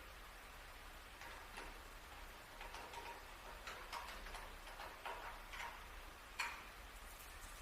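Faint, irregular light clicks and taps, a dozen or so, over a low steady hum, with one sharper click a little past six seconds in.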